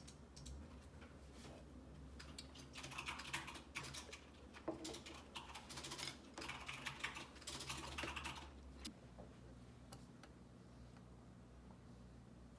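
Typing on a computer keyboard: faint runs of quick key clicks from about two seconds in until about nine seconds in.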